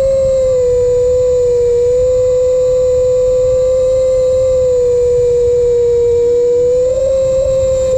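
Brushless motors and propellers of an iFlight Nazgul5 HD FPV quadcopter whining at a steady pitch in smooth cruising flight, with a low rushing rumble beneath. The pitch sags a little about five or six seconds in and climbs back near the end.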